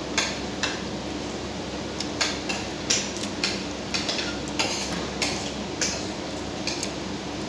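Eating utensils clinking and scraping against dishes during a meal: about a dozen short, sharp clinks at an uneven pace.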